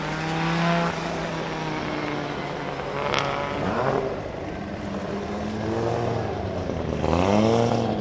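Audi Sport Quattro S1 E2's turbocharged 2.1-litre inline five-cylinder engine revving and accelerating, its pitch rising and falling through shifts and throttle blips. A sharp crack comes about three seconds in, and a rev climbs and falls back near the end.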